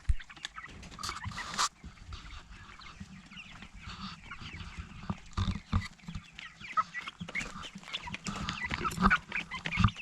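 A flock of four-week-old Meat King broiler chicks peeping and cheeping, many short high calls overlapping and growing busier in the second half. A few low thumps and a brief rustle sound among them.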